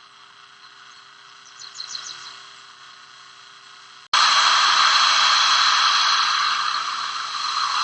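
Low hiss, then a loud steady rushing hiss that cuts in suddenly about four seconds in, like an edit between two camcorder recordings.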